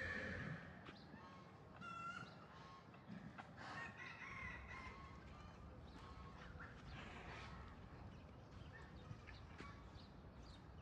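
Faint, scattered bird calls, short and spaced a second or more apart, over near silence.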